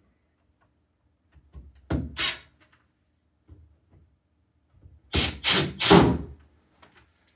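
Thuds and knocks from a door and its lock hardware being handled: two sharp ones about two seconds in, then three louder ones in quick succession about five seconds in.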